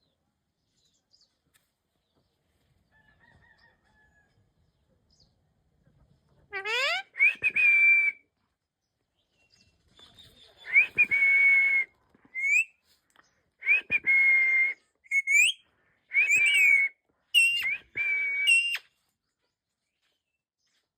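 Pet parrot giving a string of loud whistled calls. After a quiet first few seconds it gives about nine calls; a few are quick rising whistles and most are held tones up to a second long.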